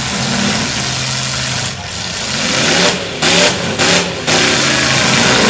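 Demolition derby trucks' engines revving hard, the pitch climbing and then breaking into loud bursts of full-throttle exhaust noise in the second half.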